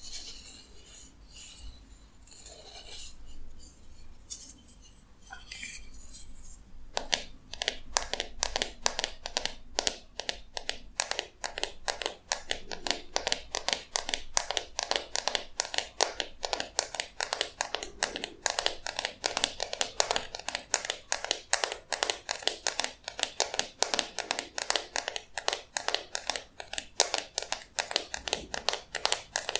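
Fingernail strumming the teeth of a wooden comb: soft scratching and rubbing at first, then from about seven seconds in a rapid, continuous run of sharp clicks as each tooth is plucked.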